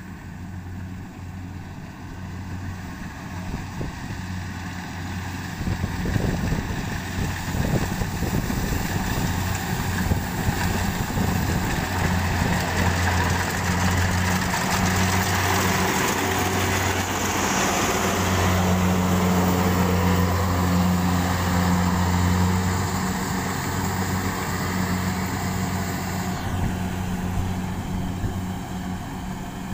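Kubota DC-70 Plus rice combine harvester running while it harvests lodged rice: a steady diesel engine hum under the rushing noise of the cutter and threshing drum. It grows louder as the machine comes close, around the middle, and eases off near the end.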